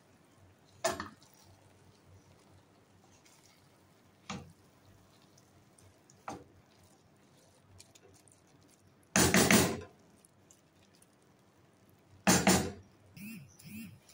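A wooden spoon stirring rice in a stainless steel pot, knocking against the pot a few times, then two louder clatters of pot and lid in the second half.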